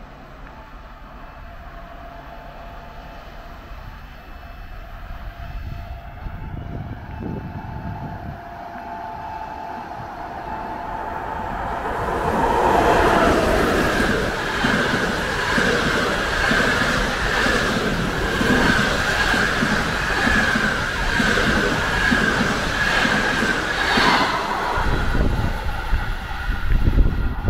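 EP2K electric locomotive hauling a passenger train, approaching and passing at speed. The sound builds over the first dozen seconds, a whine drops in pitch as the locomotive goes by, and then the coaches' wheels clatter rhythmically over the rail joints under a steady high whine.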